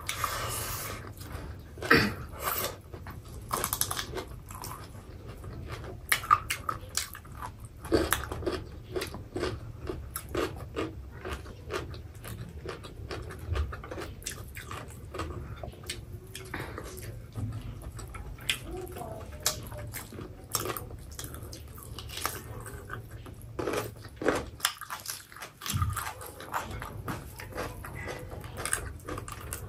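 Close-miked chewing and lip smacking of two people eating pork curry and rice with their hands, with irregular wet clicks and small crunches throughout.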